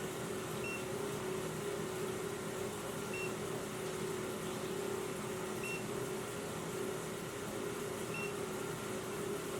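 Carbon monoxide detector giving a single short, high beep about every two and a half seconds, over a steady low hum.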